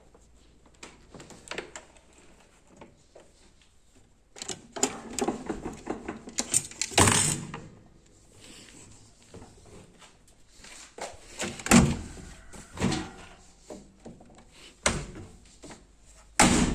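Irregular clicks, knocks and thunks of a Zanussi TL-1093V top-loading washing machine being handled, its parts opened, closed and moved by hand, with a busier clatter about five seconds in and several sharp knocks later on.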